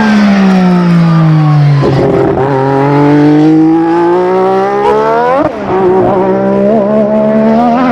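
McLaren Honda MP4/4's 1.5-litre twin-turbo V6 engine at high revs. Its pitch falls for about two seconds, then climbs steadily to a peak about five seconds in and drops sharply at a gear change. It then holds roughly steady with small wobbles, echoing off the surroundings.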